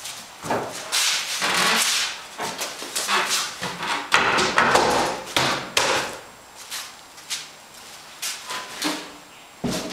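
Wooden fold-down workbench being lowered from the wall: a run of wooden knocks and scraping, with a few lighter clicks and knocks near the end as it settles open.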